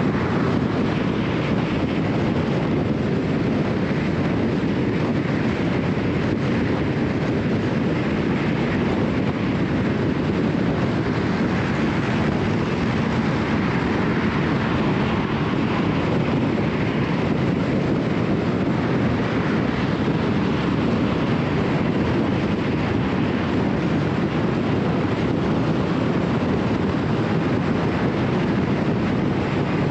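Steady road noise of a car cruising at highway speed, its tyres rolling on concrete freeway pavement: an even rumble and hiss that holds level with no breaks.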